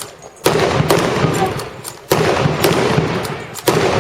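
Wartime firearms firing in a demonstration: three loud bursts of shots, starting about half a second in, at about two seconds, and near the end. Each burst is a rapid run of cracks lasting about a second and a half.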